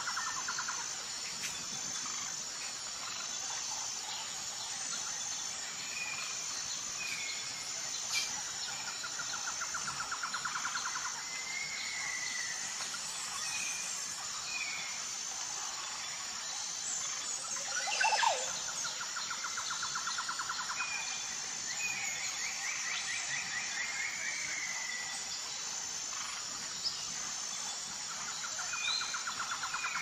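Tropical jungle soundscape: birds chirping and calling over a steady high insect drone. A rapid pulsed trill comes back about every ten seconds, and one louder call sweeps down in pitch about halfway through.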